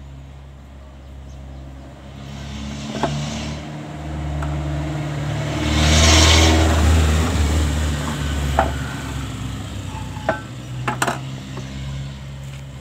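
A motor vehicle's engine drones past, swelling to its loudest about six seconds in and then fading. A few light metal clinks come from a crankshaft being worked into a diesel engine's crankcase.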